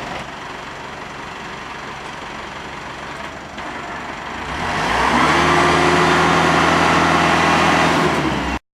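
Engine running at a low, steady level, then about five seconds in it speeds up to a louder, steady pitched hum, which cuts off suddenly near the end.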